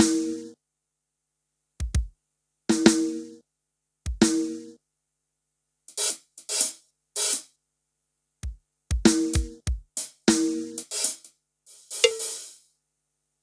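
Yamaha PSR-S770 arranger keyboard playing drum and percussion voices as separate hits with short pauses between them. There are low kick-drum thumps, pitched drum strikes that ring briefly, and crisp cymbal or hi-hat strokes, several grouped close together about two thirds of the way in.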